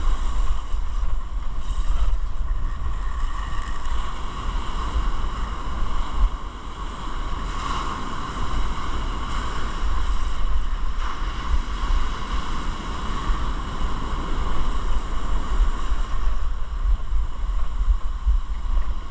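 Surf breaking and washing up the beach, with wind rumbling on the microphone.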